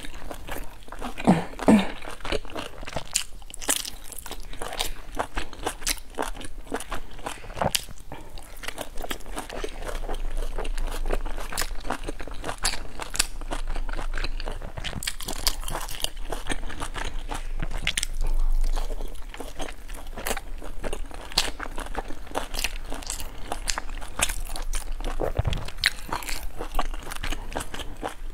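Close-miked eating: a person biting into and chewing soft pan-fried dumplings, with many short mouth clicks throughout.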